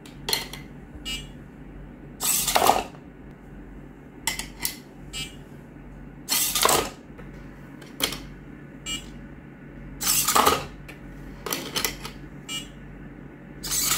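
Micro servo swinging a 3D-printed plastic arm up three times, about four seconds apart. Each time a small object tumbles with a clatter into the robot's hollow plastic body. Between these come lighter clicks of objects set down in the plastic scoop.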